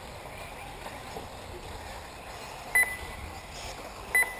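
Two short, high electronic beeps about a second and a half apart, each much louder than the steady background noise.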